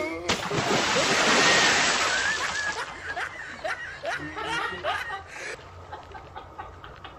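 Water splashing, a sudden rush that fades over a few seconds, followed by a man laughing.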